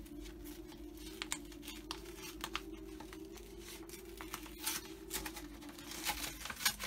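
Paper wrapping being handled and torn open by hand, in scattered rustles, scratches and small clicks. A faint steady hum runs underneath and stops shortly before the end.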